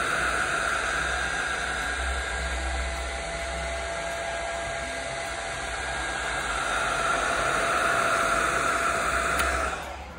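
IRT SmartCure handheld UV curing lamp running, its cooling fan giving a steady hiss with a faint hum while it cures UV putty. It winds down near the end as the lamp is switched off.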